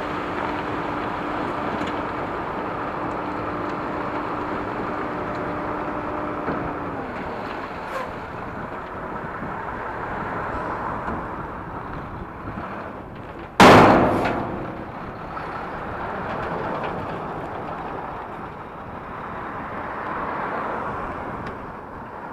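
Heartway S12X Vita Monster mobility scooter's electric drive running with a steady whine over a rushing noise; the whine slides down and stops about seven seconds in. A single loud thump comes about fourteen seconds in.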